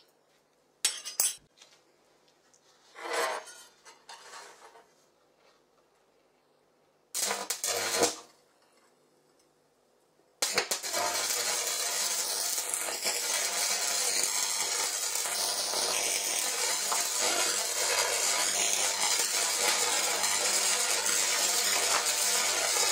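A few short metallic clinks and knocks, then about ten seconds in an electric welding arc strikes and runs as a loud steady crackle and hiss with a low hum underneath. The arc is a stick electrode welding a metal bar, powered straight from 230 V mains through a homemade salt-water resistor.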